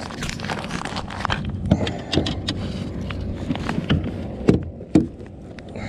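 Handling noise in a kayak: scattered clicks, knocks and rattling, with a few heavier thumps, as a freshly caught redfish hangs thrashing from a lip-grip scale.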